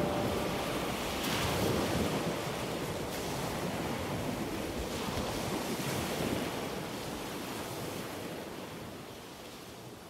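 Ocean surf breaking and washing up a sandy beach, a steady rushing that slowly fades away over the last few seconds.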